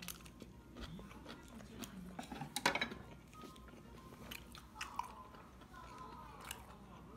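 Close-up eating sounds: chewing and biting with scattered small clicks and scrapes of chopsticks picking at fish bones, the loudest cluster a little under three seconds in.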